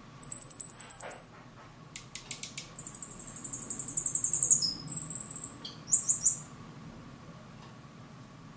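A caged silil singing a high-pitched song in several rapid trilled phrases: a trill about a second long just after the start, a few clicks, a longer trill of nearly two seconds, then shorter notes ending about six and a half seconds in.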